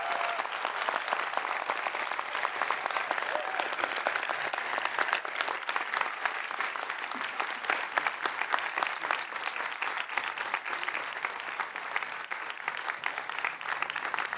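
Large audience applauding steadily: dense clapping from many hands.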